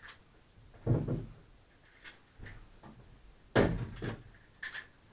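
Wooden camper back-wall sections being worked and seated against each other as the new bolt fasteners are tried: two solid thuds, about a second in and past the middle, with lighter knocks and clicks between them.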